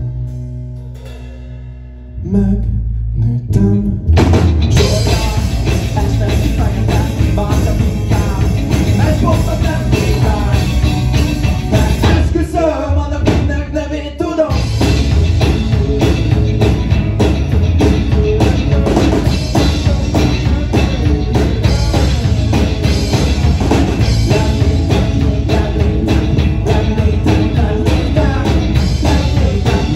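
Live rock band: electric guitar, bass guitar, drum kit and keyboard under a male lead vocal. It opens on a quiet held chord, the bass comes in about two seconds in and the full band about four seconds in. The sound thins briefly near the middle before the full band comes back in.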